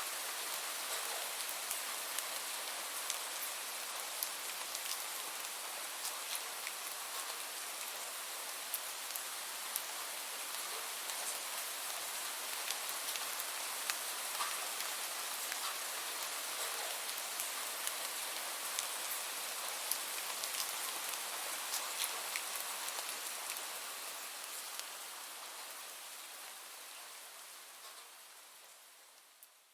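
Steady rain hissing, with scattered individual drops ticking sharply on a surface. The rain fades out gradually over the last several seconds.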